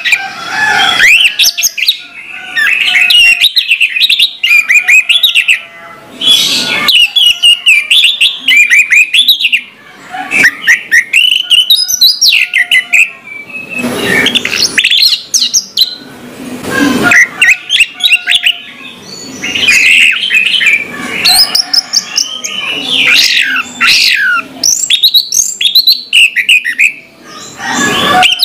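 Orange-headed thrush (anis merah) singing a loud, long, varied song of rapid whistled and chattering phrases, with brief pauses between phrases.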